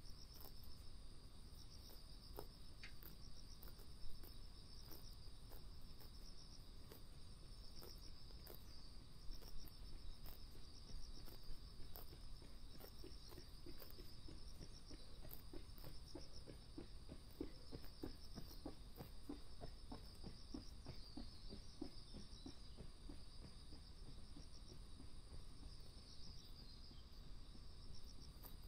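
Insects chirping in a steady pulsing high trill. Through the middle comes a run of soft quick ticks, a sika deer cropping and chewing grass close by.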